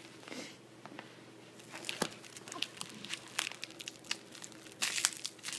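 Plastic wrapping on a package crinkling and crackling in scattered bursts as it is gripped and handled, busiest near the end.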